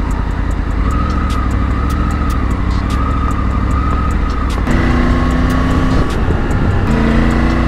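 Triumph Tiger 900's three-cylinder engine running steadily as the bike is ridden, with background music playing over it. The mix changes about five seconds in.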